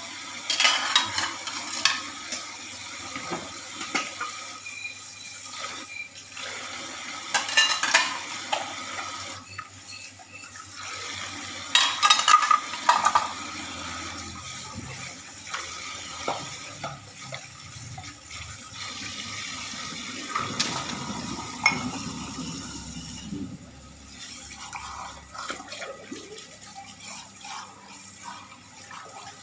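Kitchen tap running into a stainless-steel sink while dishes are washed by hand, with plates and glasses clattering now and then; the loudest clatter comes about twelve seconds in.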